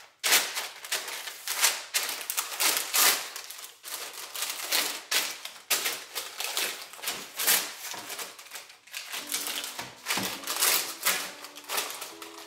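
Sheet of baking paper being creased and folded by hand on a stainless steel worktop: repeated crisp, irregular rustling and crinkling.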